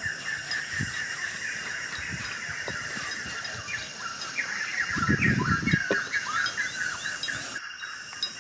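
A small bird chirping in quick runs of short notes, busiest in the second half. Under it runs a steady high-pitched insect drone, and a low rustle or knock comes about five seconds in.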